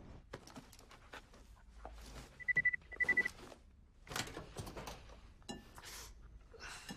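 Countertop oven's timer beeping: two quick runs of short high beeps signalling the bake is done, followed by clicks and knocks as its door is opened.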